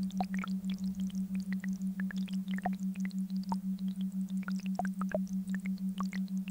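A synthetic monaural beat: one steady low hum that throbs evenly several times a second, with short electronic chirps and blips scattered at many different pitches over it.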